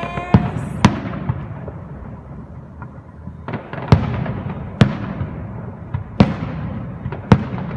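Fireworks display: about half a dozen sharp bangs at irregular intervals, each followed by a rumbling echo that dies away.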